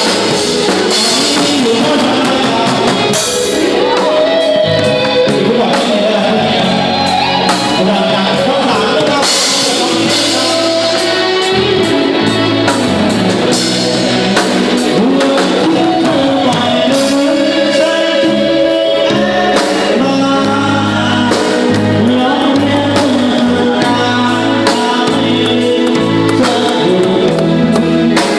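Thai retro ramwong band playing a song live, with a singer's melody over a steady drum-kit beat.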